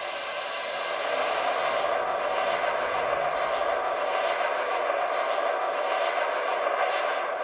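Boiler blowdown sound effect from the MTH Premier NKP 765 Berkshire model's Proto-Sound 3.0 system: a loud, steady rush of hissing steam from the model's speaker, swelling about a second in.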